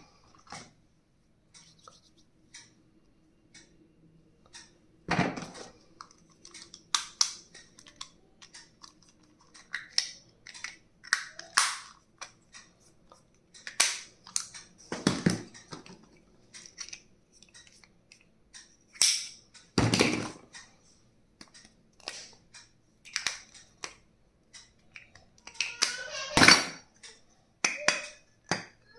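Stationery items being handled and set down: irregular clicks, taps and knocks, with a few louder thumps and a busier cluster of knocks near the end.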